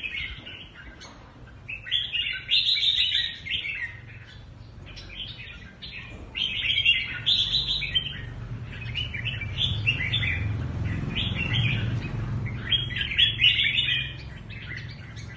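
Red-whiskered bulbul singing in short chirpy phrases, over and over, with brief gaps between them. A low rumble runs underneath through the middle.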